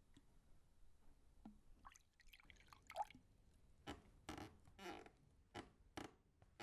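Faint sounds of water being poured into a drinking glass and dripping: a few short soft splashes.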